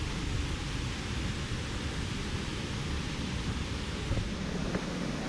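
Steady rush of a waterfall: an even wash of falling-water noise.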